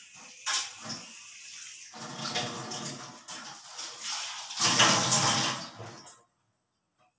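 Water running and splashing in uneven surges, loudest about five seconds in, then stopping abruptly a little after six seconds.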